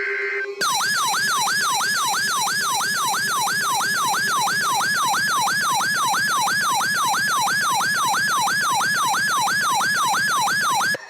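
Weather alert radio's electronic alarm siren, a falling sweep repeating about three times a second, sounding for an incoming warning; it starts about half a second in and cuts off just before the end.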